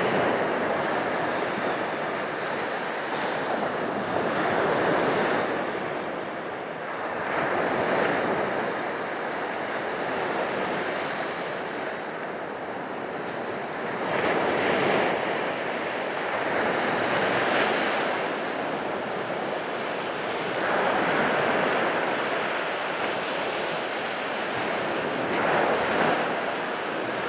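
Sea surf breaking on a beach: waves crash and wash in one after another, swelling every three to four seconds, with wind buffeting the microphone.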